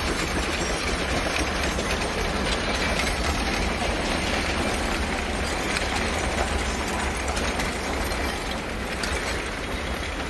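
A two-foot narrow-gauge steam train rolling past, its cars giving a steady rumble and clatter on the rails. The sound eases slightly near the end as the train pulls away.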